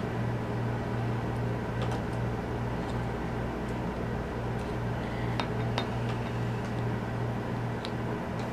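Steady low hum, with a few faint light clicks as pliers and a plastic EC5 connector housing are handled.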